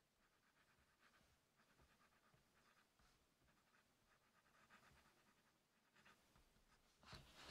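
Faint scratching of a flexible stub fountain-pen nib on paper, in short strokes as cursive words are written, with a louder rustle near the end.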